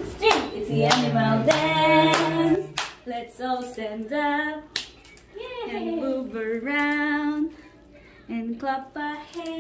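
A woman singing a children's song in a high, sing-song voice, with hand claps, most of them in the first three seconds.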